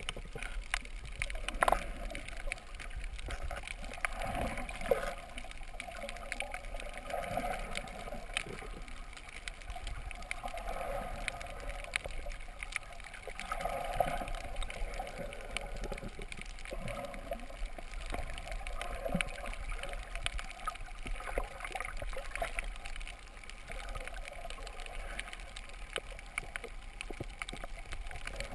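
Underwater sound through a GoPro camera's waterproof housing: muffled gurgling and sloshing of water with many scattered small clicks and ticks, and one sharper knock about two seconds in.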